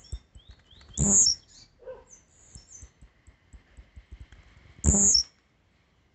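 Caged male blue-black grassquit (tiziu) singing its short song phrase twice, about four seconds apart, each phrase loud and brief.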